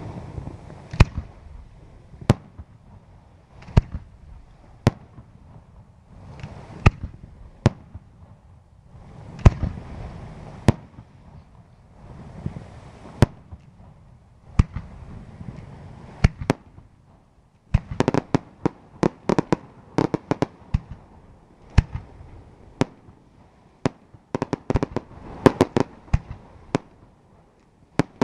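Aerial fireworks shells bursting with sharp bangs, about one a second at first, then rapid volleys of many bangs in quick succession about two-thirds of the way through and again near the end.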